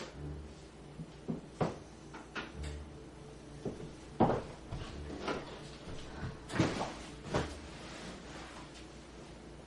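Scattered knocks and clicks of someone handling a TV cabinet and disc player, followed by footsteps across a wooden floor and settling onto a sofa.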